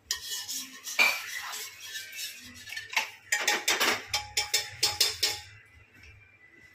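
Steel spoon clinking and scraping against a pressure cooker and steel containers: a quick run of metallic clinks, some ringing briefly, that dies away about two-thirds of the way through.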